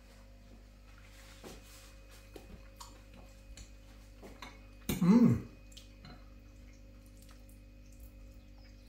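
A metal fork lightly clinking and scraping against a food dish during eating, as faint scattered taps. About five seconds in there is one short, loud vocal sound from the eater.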